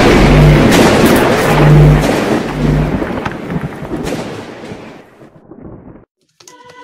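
Cinematic logo-intro sound effect: a loud rush of noise over a deep low hum with a pulsing low tone, fading away over about five seconds to a moment of silence. Music starts right at the end.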